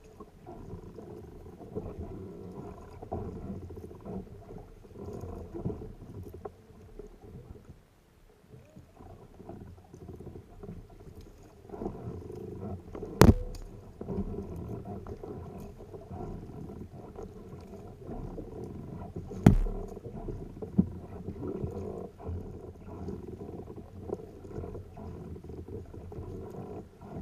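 Muffled rumble and sloshing of a kayak moving on open water. Two sharp knocks about six seconds apart, about halfway through, are the loudest sounds.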